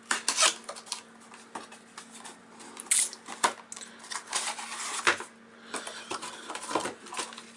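Small cardboard knife box handled and opened by hand: irregular taps, clicks and rustling scrapes of card and paper as the box is slid out and its lid taken off.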